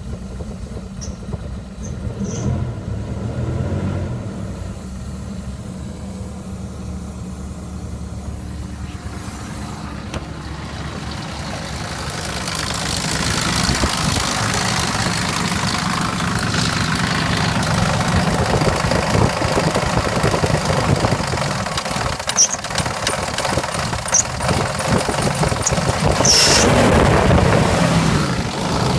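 2000 Jeep Grand Cherokee's 4.7-litre V8 running with a tapping, knocking and rattling sound, growing louder from about twelve seconds in. A mechanic put this down to two slapping pistons (the tapping and knocking) and a badly slack timing chain (the rattling) in a worn-out engine.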